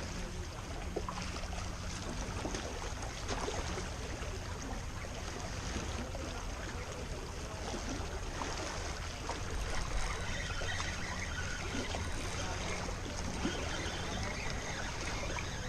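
Water lapping and splashing over a steady low rumble.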